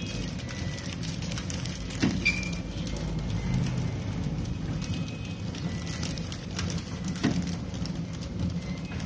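Flow-wrap packing machine running with a steady low hum and a light scattered crackle, with two sharp knocks about five seconds apart.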